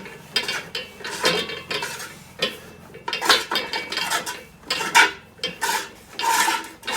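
Repeated metallic clinks, scrapes and clatter of steel tools and fittings as a seized threaded joint on a fire hose reel is worked loose.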